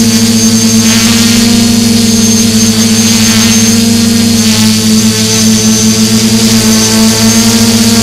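Quadcopter drone's electric motors and propellers running steadily as it hovers, heard loud and close from a camera mounted on the drone: a low hum with a thin high whine above it. The hum wavers a little about halfway through.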